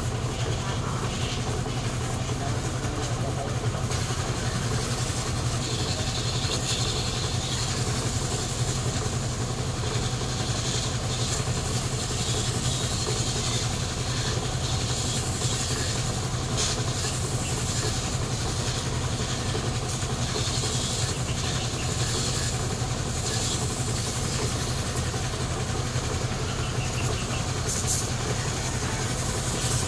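A motor running steadily with an even low hum that does not change in pitch or level.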